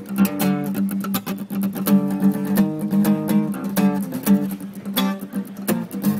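Acoustic guitar played in a steady rhythm: a run of plucked notes over a repeating low bass note.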